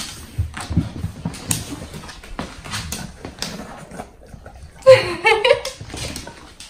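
English bulldog snuffling and sniffing around while searching for hidden food, with scattered short clicks and low thuds. A brief pitched cry about five seconds in is the loudest sound.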